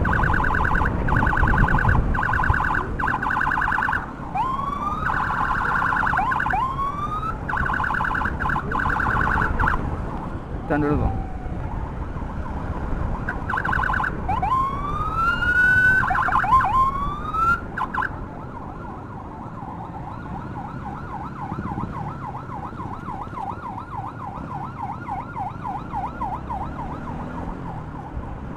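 Electronic emergency siren switching between a fast yelp and rising whoops for the first half, with one falling tone a little past ten seconds; from about eighteen seconds it drops to a fainter, steady fast warble. Low road and wind rumble from riding underneath.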